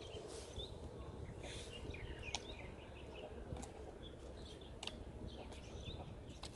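Steady low outdoor rumble with many short, high bird chirps scattered through it.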